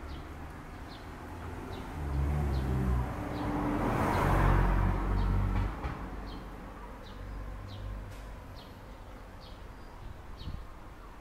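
A low rumble swells and fades between about two and six seconds in, as of a vehicle passing by. Over it a small bird chirps again and again, short high chirps one or two a second.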